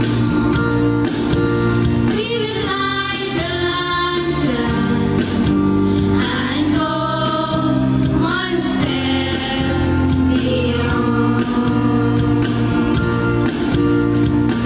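A devotional song: female voices singing over steady instrumental accompaniment, with the sung lines strongest in the middle of the passage.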